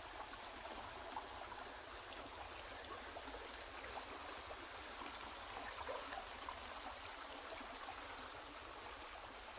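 Faint, steady rushing of a mountain stream flowing, thinned by the microphone's noise cancellation.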